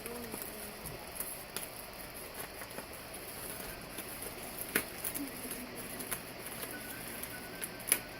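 Hands working at a package to open it: scratchy rustling and pattering, with a sharp click about halfway through and another near the end.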